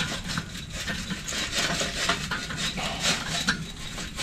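Lit charcoal briquettes tumbling out of a Weber Rapidfire chimney starter into a steel charcoal basket: an irregular clatter of coals knocking and scraping against the metal.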